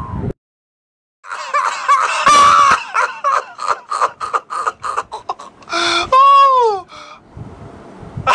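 High-pitched laughter, starting about a second in: quick repeated ha-ha sounds, ending about six seconds in with a long falling note, likely a comic sound effect laid over the video.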